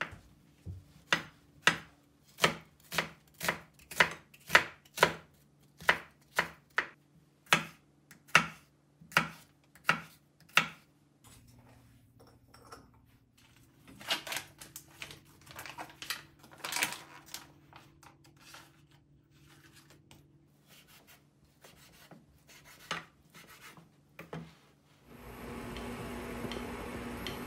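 A chef's knife slicing button mushrooms on a wooden cutting board, knocking on the board about twice a second for roughly ten seconds. This is followed by softer crinkling of plastic packaging as a bacon pack is handled, and near the end the steady rush of a pot of water at a rolling boil.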